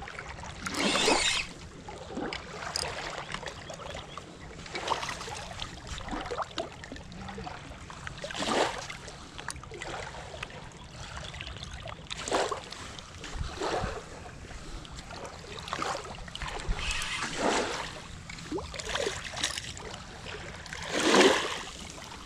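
Lake water splashing and washing at the shoreline in swells of about a second each, every few seconds, over a steady low background.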